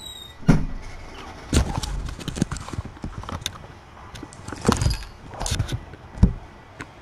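Irregular knocks and thumps with some rubbing, about eight in all and the sharpest near the end, as kittens bump and brush against the camera and its microphone.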